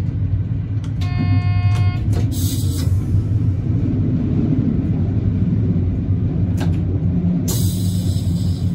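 AKN VTA diesel railcar running along the track, a steady low rumble. About a second in, a short pitched tone sounds for about a second, and bursts of hiss come at about two and a half seconds and again near the end.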